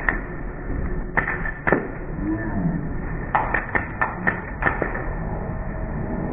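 Airsoft gun shots: a few single sharp cracks, then a quick string of about six shots.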